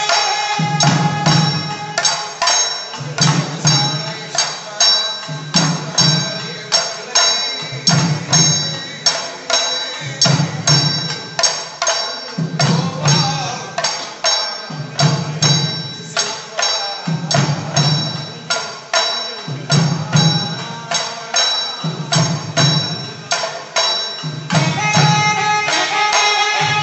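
Traditional Tamil temple percussion: hand drums beat a steady deep stroke about every second and a half, with rapid sharp strokes and metallic ringing between them. Near the end a held melodic line joins in.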